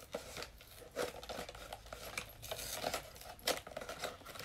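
A Lego set box being unpacked by hand: cardboard and packaging rustling, with a run of small clicks and rattles from the bagged plastic bricks.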